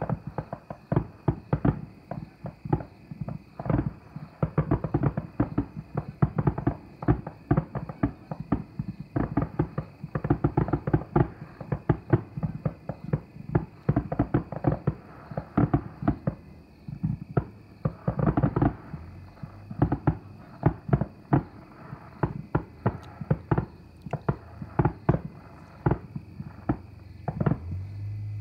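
Fireworks display going off: a rapid, unbroken series of bangs and crackling pops, several a second.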